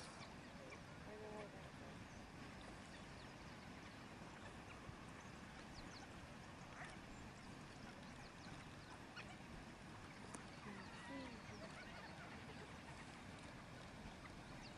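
Faint, high-pitched twittering and squeaking calls of African wild dogs at a kill, a few short calls scattered over a steady low hiss.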